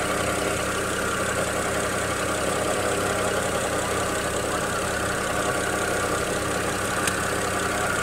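BMW N54 twin-turbo inline-six in a BMW X6 E71 idling steadily, with no shake or stumble in the sound.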